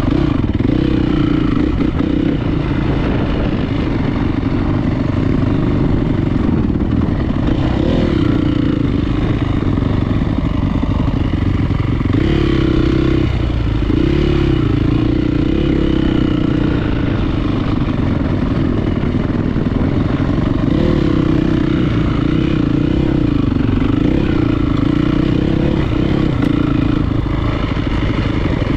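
450 cc four-stroke single-cylinder motocross bike engine running under way, its revs rising and falling steadily, with a dip around the middle.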